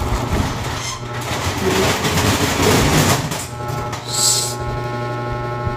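Clear plastic packaging crinkling and rustling as a bag is handled and pulled out of it, then a short hissing swish about four seconds in.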